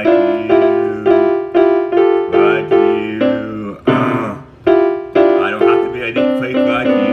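Electric-piano-style keyboard music, chords struck about twice a second in a steady repeating pattern.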